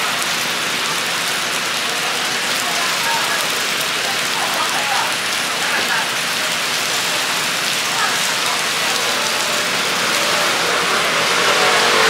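Takoyaki batter and chopped cabbage sizzling on a hot takoyaki griddle, a steady hiss.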